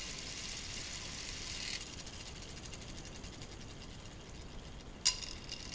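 K'nex plastic gear train driven by a small solar motor run on a battery, whirring and rattling steadily. The whir drops off after about two seconds, and a sharp click about five seconds in is followed by louder whirring again.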